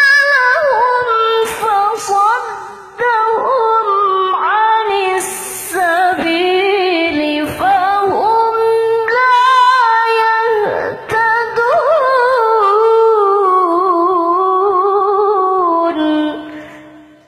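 A woman's voice reciting the Quran in melodic qira'ah style, drawing out long, ornamented held notes with wavering pitch and short breath breaks. The voice fades out near the end.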